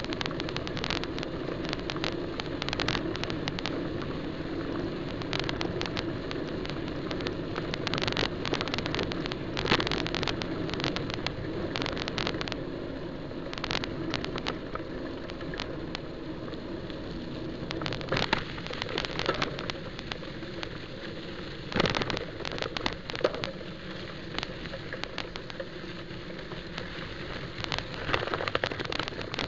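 Wind rushing over the microphone of a moving camera, with constant rattling and knocking from its mount as it travels over a bumpy road. The knocks come in clusters, with bigger jolts around 10, 18 and 22 seconds in.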